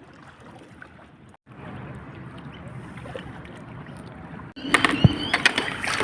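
A boat moving along a river: steady running and water noise. About four and a half seconds in it turns louder, with sharp clicks and some high, sliding squeaks.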